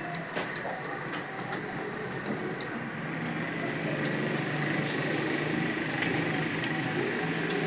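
Computer keyboard keys clicking in an irregular patter as someone types, over a steady background hum.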